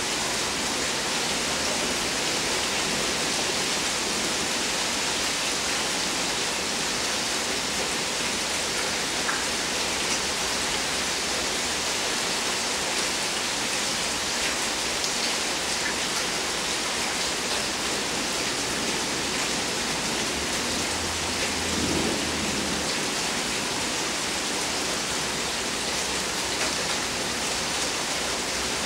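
Steady rain falling during a thunderstorm, an even hiss of rain with faint drop ticks, and a brief low rumble about two-thirds of the way through.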